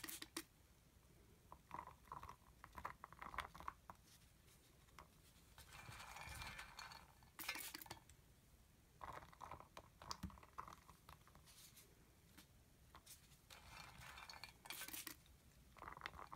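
Soft clicking and pattering of small melt-and-pour soap cubes being dropped by the handful from a plastic bowl into a plastic loaf mold, in faint bursts every few seconds, a few of them briefly louder.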